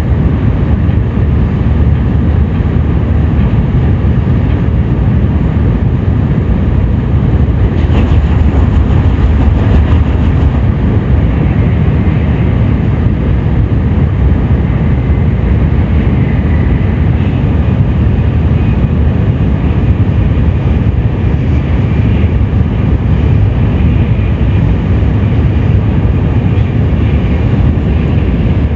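Tokaido Shinkansen train running at speed, a loud steady rumble heard from inside the carriage, with a faint high whine coming and going in the middle.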